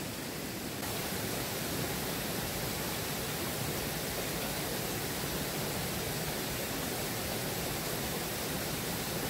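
Steady rush of flowing water from a river or waterfall, an even hiss with no change in rhythm, rising slightly in level about a second in.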